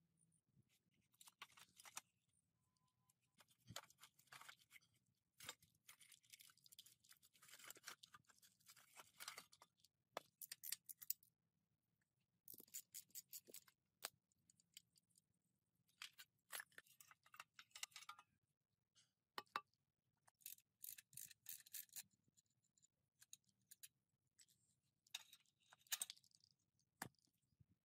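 Hand tools and rusty metal parts of a minibike being worked apart: irregular clicking, scraping and clinking in short clusters, with brief pauses between them.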